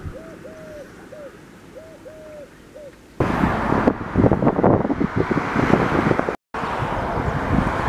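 A bird calls in short hooting notes of one pitch, about six of them in three seconds. Then loud wind buffets the microphone, broken by a brief dropout about six seconds in.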